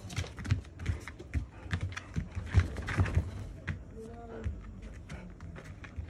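Akita dogs' claws and paws clicking and tapping on a hard floor in quick, irregular steps as they move about.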